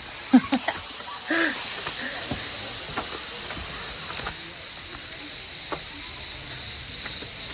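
Cicadas calling in a steady high-pitched hiss, with a few brief short sounds in the first second and a half.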